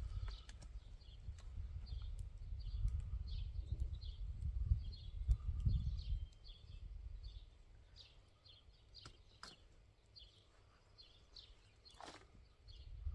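Small birds chirping in the background: many short, repeated high notes. A low rumble lasts for about the first six seconds, then fades, and a few sharp clicks come near the end.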